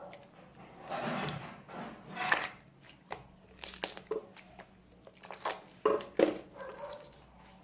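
Slime being squeezed and stretched by hand: irregular squishing and crackling, with a handful of sharp pops about halfway through.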